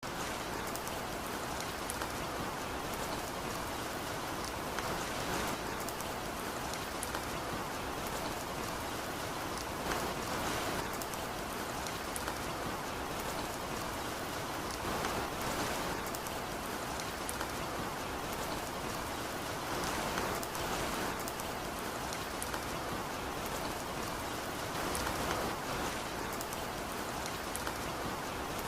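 Steady rain falling on a surface, an even hiss with scattered drop ticks that swells slightly every few seconds.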